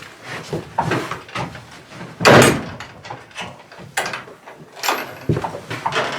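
Knocks and scrapes of a barn door being handled, with one loud rattle about two seconds in.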